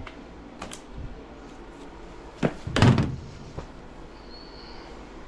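A sharp knock and then a heavier thud right after it, about two and a half seconds in, with a few light clicks around them: heavy HVAC equipment being set down and shifted into place.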